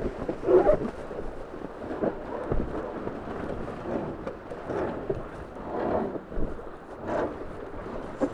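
Wind buffeting the onboard microphone over water rushing past the hulls of a Tornado racing catamaran under sail, swelling and easing in uneven gusts.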